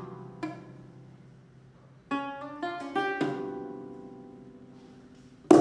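Lute played alone in sparse plucked notes and chords: a chord at the start, another half a second later, then a quick cluster of notes about two seconds in that rings out and slowly fades, and a loud struck chord near the end.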